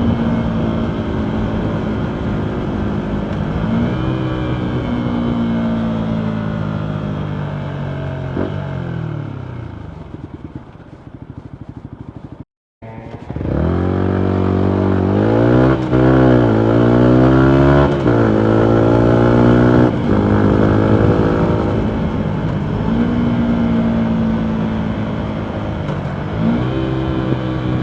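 Yamaha MT125 single-cylinder engine through a full Akrapovic exhaust, shifting through the gears. It slows with falling pitch to a low pulsing idle, and after a brief cut-out of all sound it pulls away hard, the pitch rising and stepping down at each of several upshifts before it settles into steady running.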